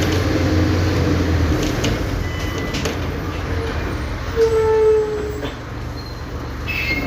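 Mercedes-Benz OF-1722M bus's six-cylinder turbodiesel engine running as the bus drives; its low note drops about a second and a half in. A brief squeal sounds a little after the middle.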